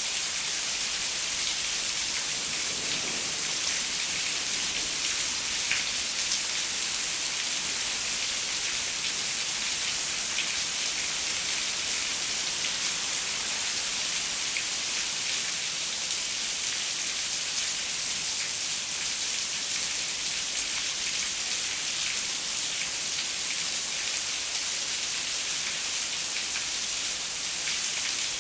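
Steady rain falling on a window, a dense even hiss with fine patter of individual drops.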